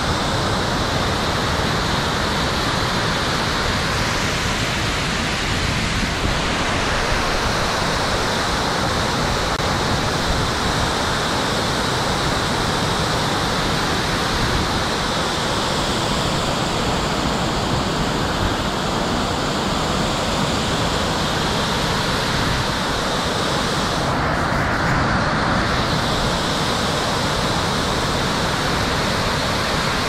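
Oshinkoshin Falls, a large waterfall, giving a loud, steady rush of falling water.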